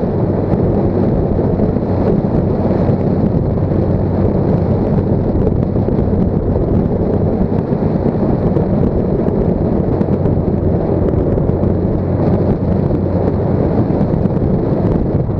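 Wind buffeting the microphone of a camera mounted outside a moving car, with steady road and drivetrain noise and a low hum underneath.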